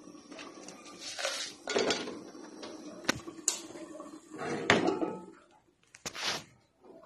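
Kitchenware clattering: pots, lids and dishes knocking and clinking in an uneven string of sharp knocks, with louder clusters about two seconds in and near five seconds.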